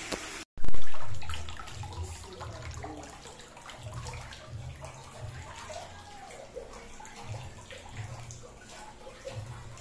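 Water sloshing and splashing in a shallow plastic tub holding large aquarium fish, with a loud sudden splash about a second in that fades away. Handling rumble from the handheld camera runs under it.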